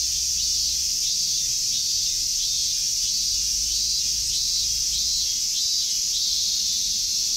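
Chorus of cicadas singing in the trees: a loud, steady, high-pitched ringing that never lets up.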